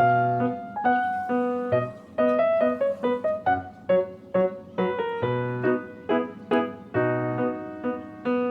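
Background music: a piano-like keyboard tune of quick notes over a bass line.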